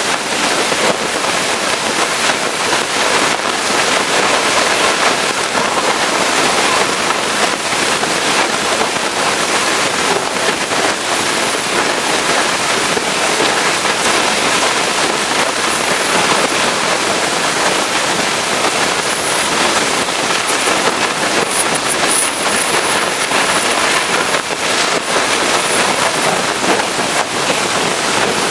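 Pressure washer jet spraying water onto a truck's surfaces: a steady, loud rush of spray.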